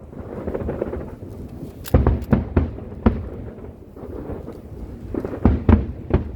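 Aerial fireworks going off: a quick run of sharp booms about two seconds in and another near the end, with rumbling echo and crackle between them.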